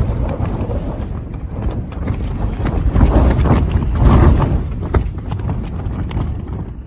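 Strong, gusting mountain wind buffeting the microphone: a heavy, uneven rumble with irregular thuds and rattles, easing off near the end.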